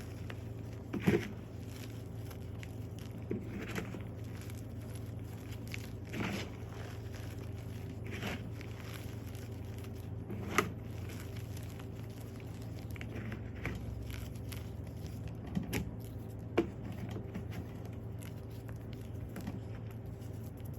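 Blocks of dyed gym chalk crunching and crumbling as they are crushed, in scattered crisp crunches a second or two apart.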